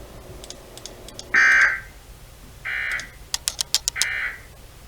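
Emergency Alert System end-of-message signal: three short bursts of SAME digital data tones, a buzzing warble a little over a second apart, marking the end of the weather radio warning. A quick run of sharp clicks falls between the second and third bursts.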